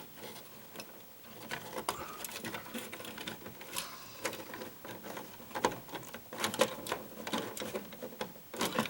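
Irregular clicks, taps and scraping as bundled electrical wires and a single-pole light switch are pushed and worked into a wall switch box, with a few louder knocks in the second half.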